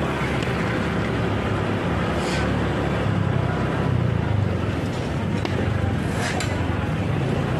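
Steady low hum of a motor vehicle engine moving slowly through street traffic, with road noise.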